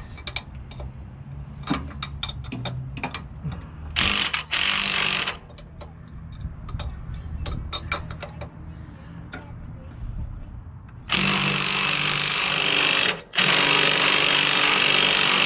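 Cordless drill running in bursts: a short run about four seconds in, then a long run from about eleven seconds with a brief stop near thirteen, and some metal clicks and clatter before it.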